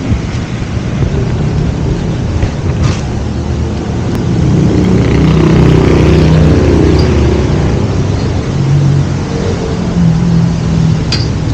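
Low, steady rumble of a motor vehicle's engine in the street, swelling about halfway through, with a sharp click near the end.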